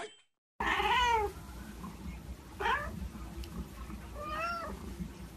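Domestic cat meowing three times, the first meow the loudest, over a low steady background hum.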